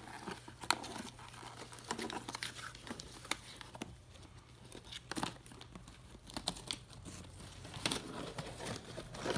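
An Amazon parrot tearing and chewing paper folders: irregular crinkling and ripping of paper and card, with scattered sharp crackles.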